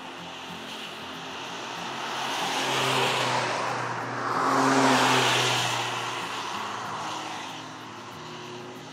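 Ford Puma ST driving past on a wet track: engine note under the hiss of tyres throwing spray off the wet tarmac. It swells to a peak about three seconds in, dips briefly, then swells louder about five seconds in before fading.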